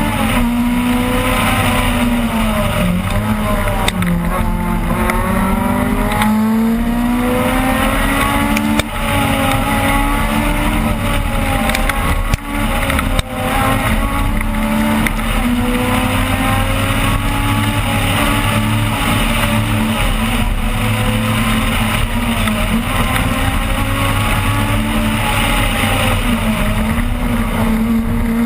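Opel Kadett rally car engine heard from inside the car at speed, its pitch climbing and falling as it revs through the gears. Brief sharp drops in loudness about nine seconds in and twice around twelve to thirteen seconds mark lifts off the throttle.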